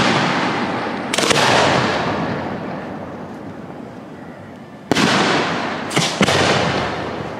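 Aerial fireworks shells bursting overhead: a sharp bang about a second in, then three more about five to six seconds in, the last two close together. Each bang trails off in a long rolling echo.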